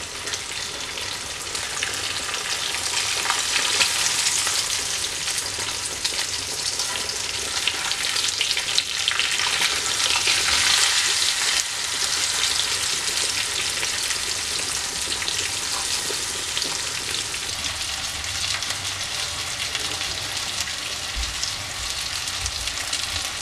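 Two marinated pomfret shallow-frying in hot oil with curry leaves, sizzling steadily, with occasional clicks of a slotted spoon against the pan as the fish are moved and turned. The sizzle swells loudest about ten seconds in.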